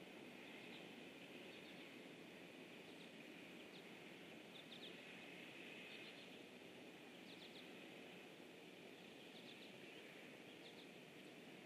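Faint outdoor ambience at a pond: a steady low hiss with short high chirps, in twos and threes, about every second.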